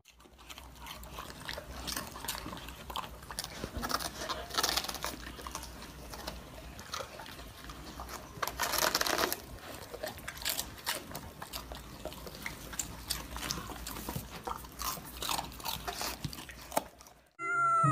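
Golden retrievers, an adult and a puppy, chewing and tearing a head of napa cabbage: irregular crisp crunching of leaves, with louder crunching around four and nine seconds in.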